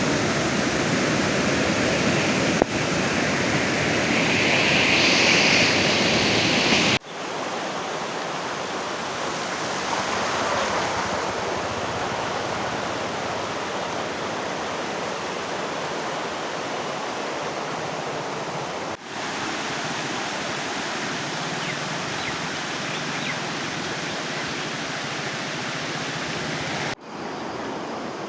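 Rushing floodwater: a steady, even rush of flowing water, broken by abrupt cuts three times as one recording gives way to the next.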